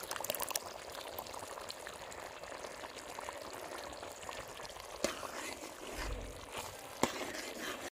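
Liver curry in ghee sizzling and bubbling steadily in the pot as it cooks, with a few crackles near the start and two sharp clicks about five and seven seconds in.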